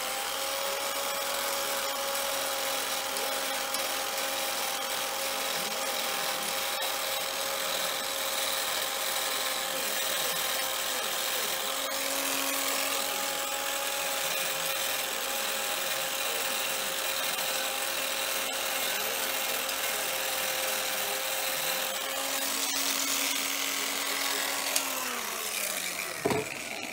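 Electric power scraper running, its blade scraping the cast-iron slideway of a surface grinder's saddle to flatten the worn, high spots. The motor holds a steady whine with scraping noise and winds down near the end.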